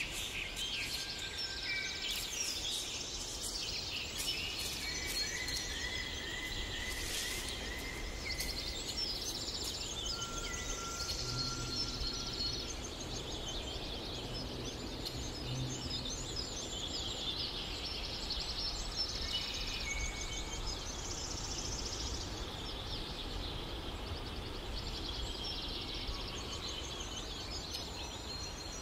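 Several birds chirping and trilling continuously, over a steady low background noise.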